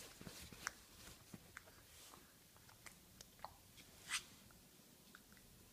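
Faint, scattered chewing and mouth clicks of someone eating soft food, with a short louder smack about four seconds in.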